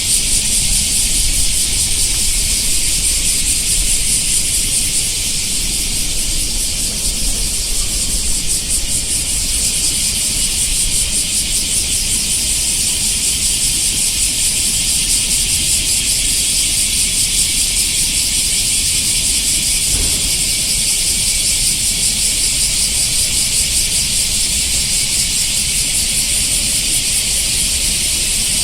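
A dense chorus of cicadas buzzing: a steady, shrill, high-pitched drone with a fast pulsing texture, over a faint low rumble.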